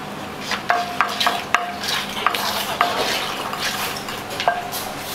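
A metal cooking utensil knocking and scraping against a pan in irregular strikes, some leaving a short metallic ring, over a steady sizzling hiss.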